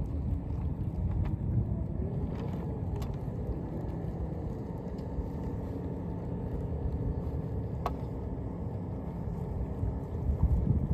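Steady low rumble of wind on the microphone with a faint distant engine drone, and a few light clicks from the sail's fittings being handled.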